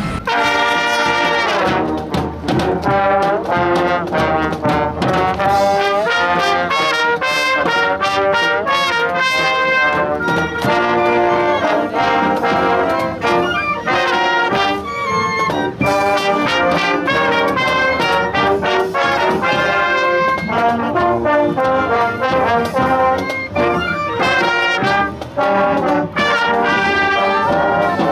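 Junior high school marching band's wind section playing a piece, trumpets and trombones to the fore with saxophones and sousaphones.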